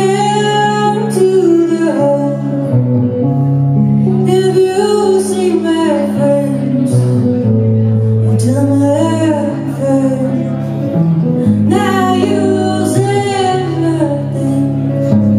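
Live band music: a woman singing a slow folk-country song in long phrases over electric guitar and sustained keyboard chords that change every second or two.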